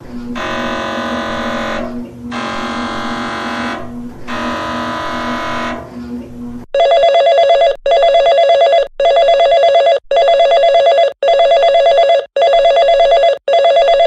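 Emergency Alert System test alert tones: three long buzzy tones of about two seconds each, then an alert tone pulsing on and off about once a second.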